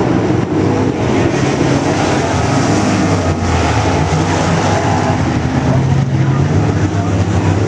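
A pack of IMCA Modified dirt-track race cars' V8 engines running hard at racing speed, a loud, steady engine drone whose pitch shifts a little as the cars go through the turn.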